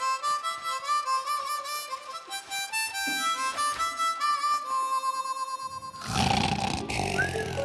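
A harmonica playing a melody of single notes. About six seconds in, a loud snore takes over.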